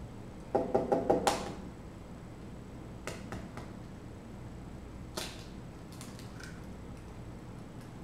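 An egg being knocked against the rim of a bowl to crack it: a quick run of about six taps about half a second in, ending in a sharper crack. A few fainter clicks of eggshell follow.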